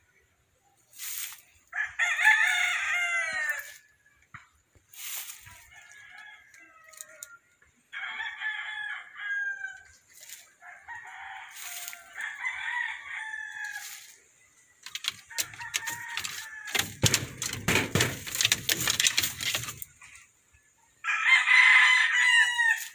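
Roosters crowing repeatedly, about five long crows, the loudest near the start and near the end. Midway through the crowing there are a few seconds of rustling and knocking.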